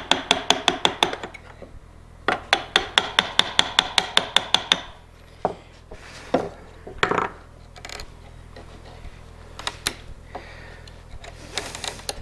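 Round wooden mallet tapping a bench chisel in quick, light strikes, about six a second, in two runs of a second or two each, chopping a corner of the wood clean. After that, a few scattered scrapes and knocks as the chisel pares by hand.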